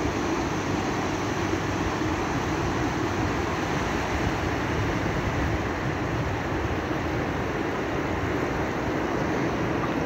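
Low surf breaking offshore and washing up over a shallow sandy beach: a steady, unbroken rush of surf.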